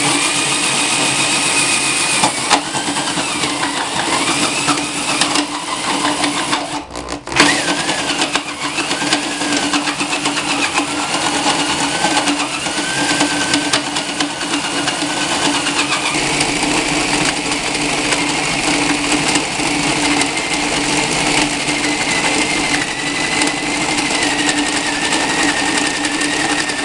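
A 3/8-inch electric drill running steadily under load, driving a small jaw crusher as rock is fed in and cracked between its steel jaws, with a wavering whine and scattered sharp clicks. The drill briefly stops about seven seconds in and starts again.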